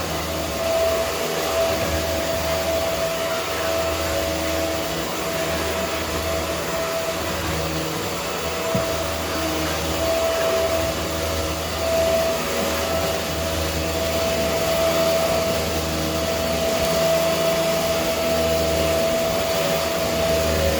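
Vacuum cleaner running steadily, a rushing suction noise with a high motor whine that dips and swells slightly as it is worked over a surface.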